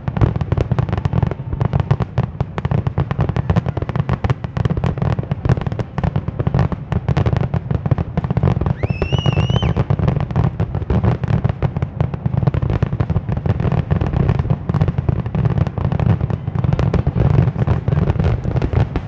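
Aerial fireworks shells bursting in rapid, near-continuous succession, a dense barrage of bangs and crackles over a low rumble. A short rising whistle cuts through about nine seconds in.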